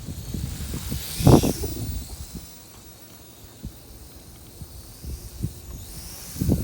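Gusty wind blowing across the microphone: uneven low buffeting with a strong gust about a second in and another near the end, each carrying a rushing hiss, easing off in between.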